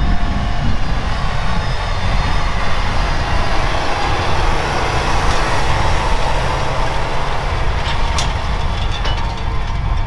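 Tractor engine running steadily as it works the field, with a few sharp clicks about eight seconds in.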